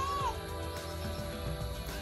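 Background music of sustained notes over a steady low pulse, with a short rising-then-falling tone at the very start.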